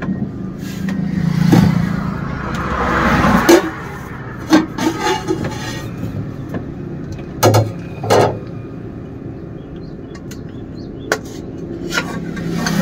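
Road traffic going by: one vehicle's noise swells to a peak about three seconds in, and another hum rises near the end. Steel plates and vessels knock and clink several times against each other.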